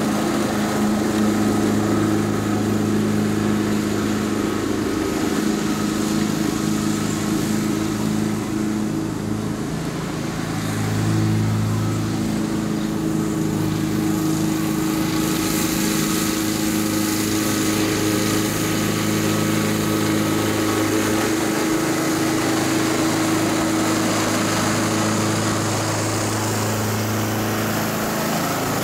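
Honda HRX217 walk-behind lawn mower's single-cylinder gas engine running steadily at constant speed while mowing, a steady even hum throughout.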